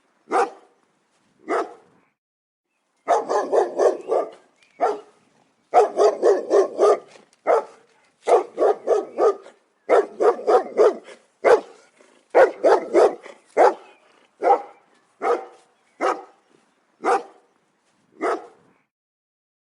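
German shepherd barking: a few single barks, then quick runs of several barks in a row, with spaced single barks again near the end.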